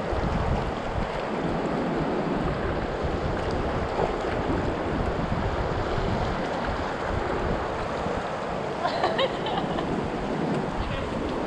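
Steady rush of moving river water, with wind buffeting the microphone.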